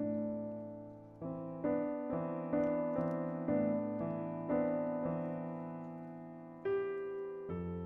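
Background piano music: slow notes and chords struck one after another, each fading away.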